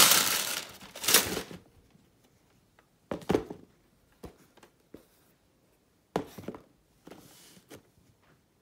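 Tissue paper crinkling and rustling as it is pulled away by hand, for about the first second and a half. After that, a few short knocks and rustles of handling.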